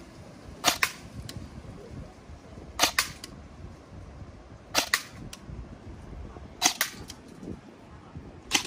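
Airsoft replica AR-15 firing five single shots of plastic pellets, about two seconds apart, each a sharp double crack.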